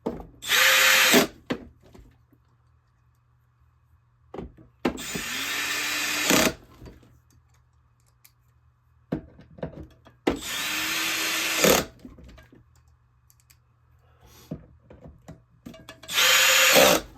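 Power drill driving four Torx 20 screws one after another: four short runs of the motor, each speeding up as it starts and then stopping, the middle two longest, with small clicks of handling in between.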